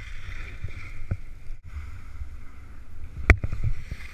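Skis hissing and scraping over packed snow during a run, with wind rumbling on the action camera's microphone. The sound drops out briefly about one and a half seconds in, and there is a single sharp knock a little past three seconds in.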